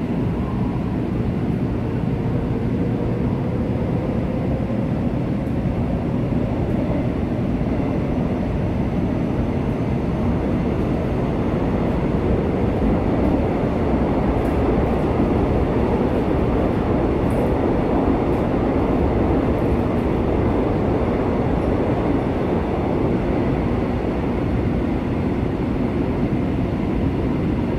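Interior running noise of a Suin-Bundang Line subway train in a tunnel: a steady rumble of wheels on rail and car noise, with a faint whine that rises slightly in pitch over the first several seconds.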